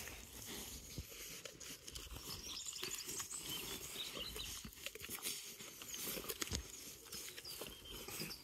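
Faint crunching and tearing of sheep cropping grass and chewing, with scattered small clicks and a few faint high bird chirps.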